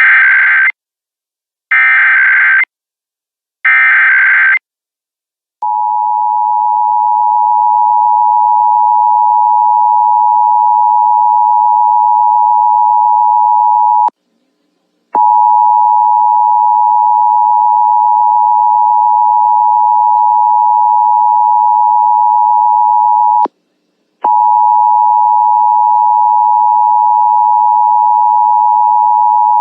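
Emergency Alert System test signal: three short bursts of digital SAME header data screech, each under a second, then the EAS two-tone attention signal (853 and 960 Hz) sounds as a steady tone that drops out twice for about a second, announcing the start of the statewide monthly test.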